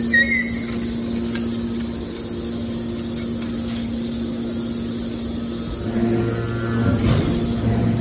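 Hydraulic scrap-metal baler's power unit running with a steady mechanical hum. A short high squeak comes right at the start, a deeper hum joins about six seconds in, and a metallic knock follows about a second later.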